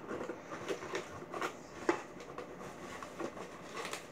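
Cardboard box being opened and handled: the flaps and packaging scrape and rustle, with scattered small knocks, the sharpest a little under two seconds in.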